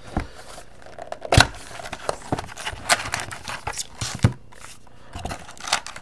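Trading cards and their packaging being handled: irregular taps, clicks and light crinkling of card and wrapper, with one sharper knock about a second and a half in.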